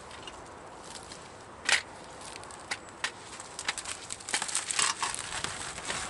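Dry grass and twigs crunching and crackling as they are handled, with a sharp snap about two seconds in and a denser run of crunching and snapping in the second half.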